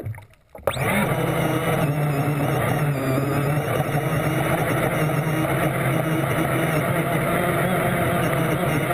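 RC boat's motor and propeller running steadily with a low hum and water noise, muffled as through a camera's waterproof housing. It cuts out briefly just after the start.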